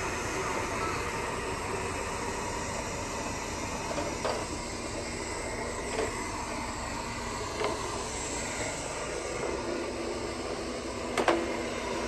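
Roomba robot vacuum running steadily, its motor and brushes making a constant hum. A few short knocks come through, the loudest about eleven seconds in.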